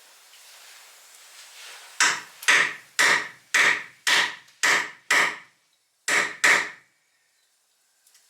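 Hammer striking wood in a steady series: seven blows about two a second, a short pause, then two more.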